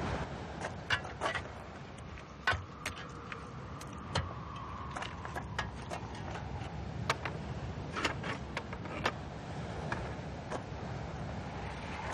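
Pickaxes and shovels striking rock and stones clinking, heard as irregular sharp knocks about once a second, over a steady low background noise.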